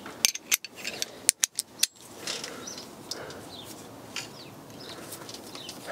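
A quick series of sharp metal clicks and clinks, about six in under two seconds, from a metal bracket and hand tools being handled in a car's engine bay, then a low, even background hiss.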